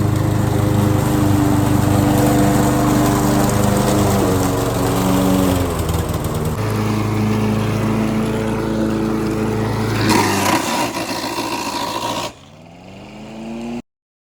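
Gas lawn mower engine running steadily, changing tone a couple of times. Near the end it drops in level, its pitch shifts, and then the sound cuts off abruptly.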